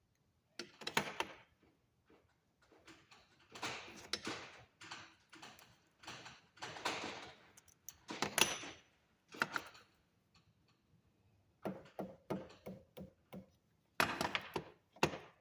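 Small hand tools and wire being handled on a work surface: irregular bursts of clicking, scraping and light knocks, coming in clusters with short pauses between them.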